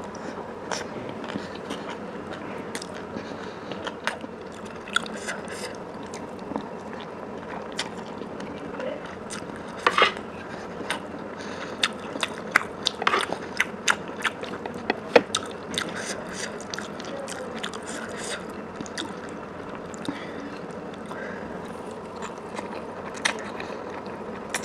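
Close-miked eating: chewing and biting with many irregular wet mouth clicks, busiest in the middle stretch, over a steady hiss.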